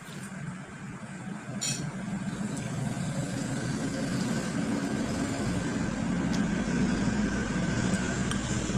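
Steady low engine rumble of a passing motor vehicle, growing gradually louder, with a single sharp click about two seconds in.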